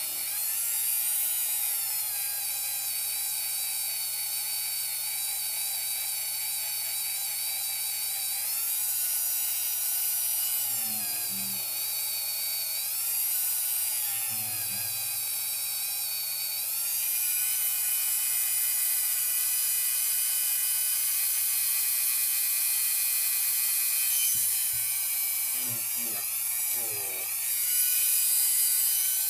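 Dremel rotary tool running at high speed with a felt polishing pad and green compound, buffing a pocketknife's metal bolster. Its whine dips in pitch and recovers a few times, around a third of the way in, near the middle and near the end.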